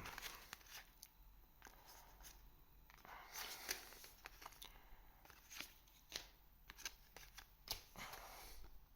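Faint rustling, sliding and soft flicks of trading cards and their foil booster-pack wrapper being handled, with scattered light clicks.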